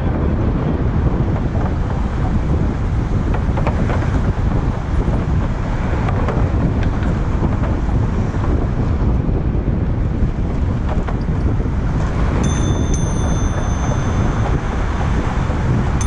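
Steady wind noise buffeting a helmet-mounted GoPro microphone on a moving bicycle. About three-quarters of the way through, a thin, high-pitched steady whine starts and holds.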